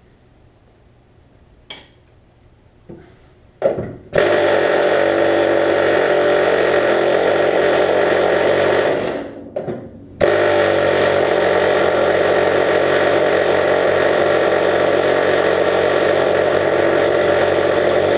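Pneumatic air chisel hammering on a seized lower door hinge pin, a loud rapid buzzing rattle. It starts about four seconds in after a few light taps, stops for about a second past the middle with a couple of short bursts, then runs steadily again.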